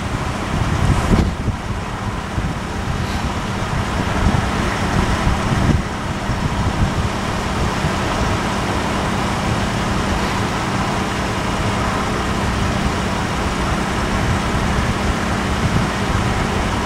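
A steady vehicle rumble with a low, even hum under it, swelling briefly about a second in and again near six seconds.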